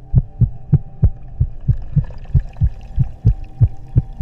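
Heartbeat sound effect: low thumps about three a second over a steady low drone.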